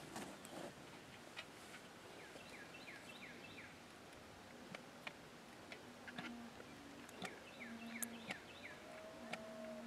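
Faint, scattered clicks as a hand-lever grease gun is worked at a disc harrow's bearing grease fitting, against quiet open-air background. Two short runs of quick, downward-sliding bird chirps come in, one about a third of the way in and one near the end.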